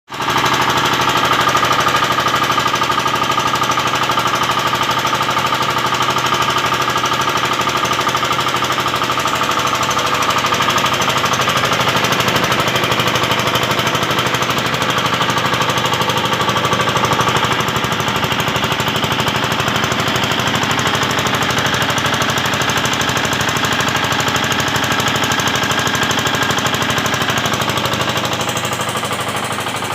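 5 HP Field Marshal single-cylinder diesel engine running a high-pressure air compressor: a loud, steady, rapid knocking from the engine and compressor pistons, easing slightly near the end.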